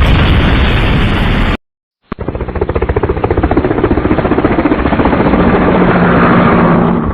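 Loud mechanical noise: a short steady rush that cuts off suddenly, then, after half a second of silence, a fast, rapidly pulsing drone.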